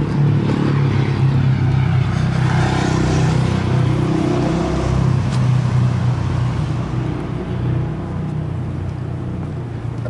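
A motor vehicle's engine running steadily while driving along, loudest in the first half and easing off toward the end.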